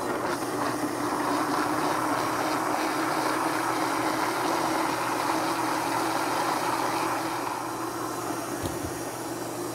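Countertop blender running steadily, its motor humming as it purées cooked cassava, eggs and water into a thick, creamy batter. The sound eases slightly in level near the end.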